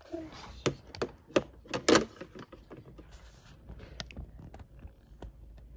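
Hard plastic clicks, knocks and light rattling as stationery and stickers are handled and put into a clear plastic storage drawer. The loudest cluster of knocks comes about two seconds in, followed by a few lighter clicks.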